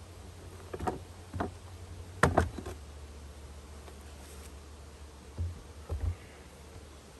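A handful of short sharp knocks and clicks, the loudest pair a little after two seconds in, from wooden beehive boxes, lids and frames being handled, over a low steady hum.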